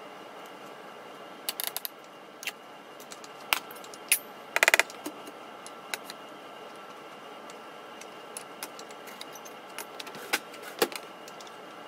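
Serving utensils clinking against cookware and a dish as food is scooped and plated: scattered sharp clicks and clinks, with a brief ringing metallic rattle about four and a half seconds in.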